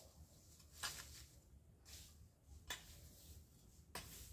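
A long-handled hoe chopping into weedy ground, three faint strikes about a second and a half apart.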